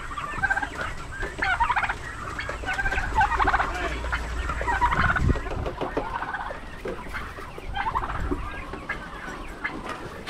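Turkeys gobbling and calling again and again, with chickens clucking among them.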